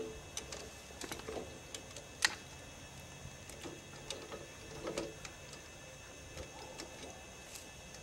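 A few light clicks and small knocks from hands working the metal frame of a homemade chainsaw mill, with the chainsaw not running; the sharpest click comes about two seconds in.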